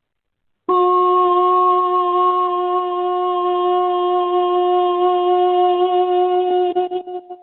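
A wind instrument sounding one long, steady note that starts about a second in and wavers and fades out near the end.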